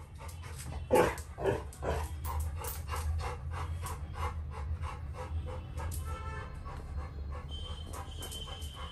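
Labrador retriever puppy panting fast and steadily, about three breaths a second, with a couple of louder sounds about a second in.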